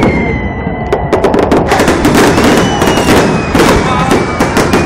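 Fireworks going off in rapid succession close by: a dense, continuous string of sharp bangs and crackles.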